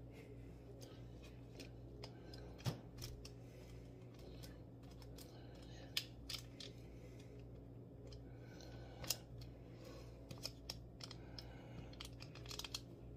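Fingers placing and pushing seasoned fries apart on a foil-lined sheet pan: light scattered taps and crinkles of the foil, with sharper clicks about three, six and nine seconds in. A low steady hum runs underneath.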